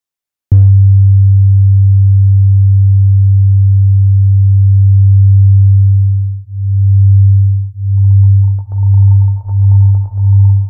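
Electronic film score: a deep, pure, humming tone starts suddenly about half a second in and holds steady. From about six seconds it begins to pulse, the pulses coming faster and faster. A faint higher tone with light crackling joins near the end.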